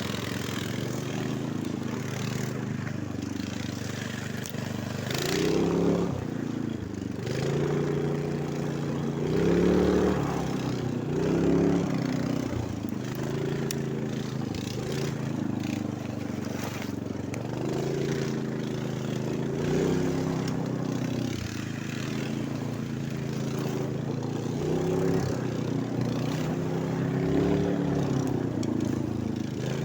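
Snowmobile engine running under way, its pitch rising and falling repeatedly as the throttle is opened and eased off.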